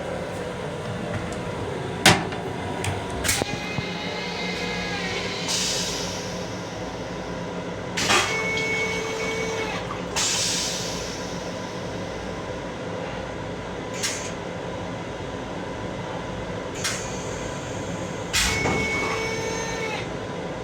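Steady running hum inside an MTA Long Island Rail Road M7 electric railcar, broken by several sharp knocks and clunks. Two bursts of hiss fade away, and twice a short steady tone sounds right after a knock.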